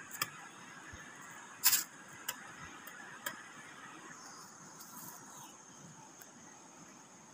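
A few sharp knocks as a knife and a durian's spiky husk are handled, the loudest about a second and a half in, over a steady faint high hiss.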